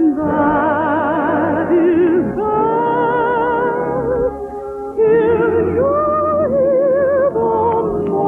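A soprano singing a slow lullaby in operatic style over an orchestra, holding long notes with a wide vibrato.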